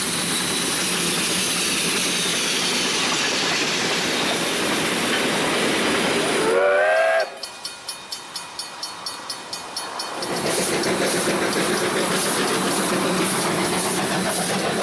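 Dubbed recording of a real train running: a steady loud rush and hiss, cut by a short train whistle rising in pitch about six and a half seconds in. The sound then drops suddenly to a quieter quick run of even clicks, about five a second. About three seconds later the loud running noise returns with a regular clatter.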